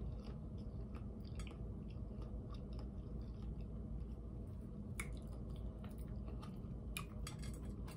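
Close-up chewing and soft mouth sounds of someone eating cucumber and tomato salad, with scattered light clicks, the sharpest about five and seven seconds in.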